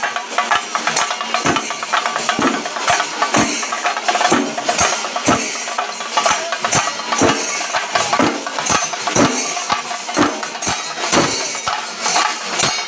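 Kerala temple percussion ensemble of chenda drums with cymbals playing a steady, loud beat, with heavy strokes about once a second and a continuous shimmer of cymbals over it.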